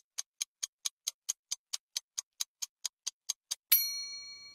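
Quiz countdown timer sound effect: quick clock ticking, about four or five ticks a second, cut off near the end by a single bright bell ding that rings on, signalling that time is up.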